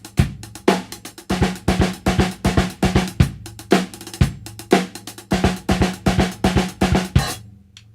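Acoustic drum kit played in a fast, even pattern of snare drum strokes with bass drum kicks, the Swiss Army triplet rudiment applied to the kit. It stops a little over seven seconds in.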